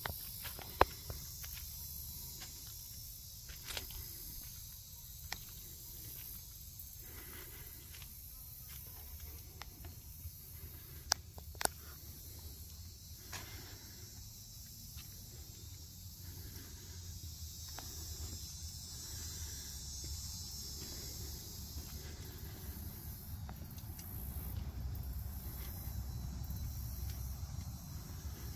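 Footsteps of a person walking, with a few sharp clicks standing out about a second in and around twelve seconds. Underneath runs a steady low rumble and a high hiss.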